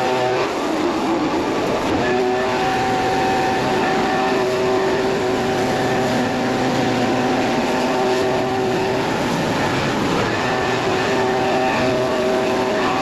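Stihl RB 400 gas pressure washer running steadily under load, its engine drone mixed with the hiss of the high-pressure water spray on concrete.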